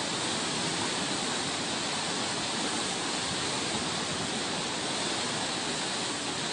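Swollen Godavari river in flood, its fast brown water rushing and churning in a steady, unbroken wash of water noise.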